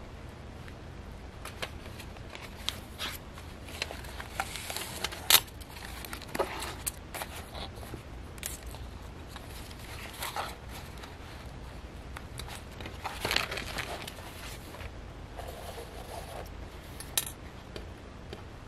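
Scattered rustles and light taps of paper and card as the pages of a handmade junk journal are leafed through and handled, with one sharper click about five seconds in.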